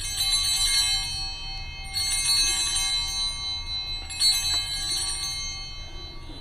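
Altar bells rung three times, about two seconds apart, each ring a bright multi-toned jingle that fades away. They mark the elevation of the chalice at the consecration.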